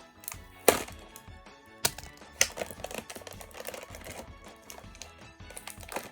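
A run of sharp clicks and taps from toy packaging being handled, the loudest three within the first two and a half seconds, over background music.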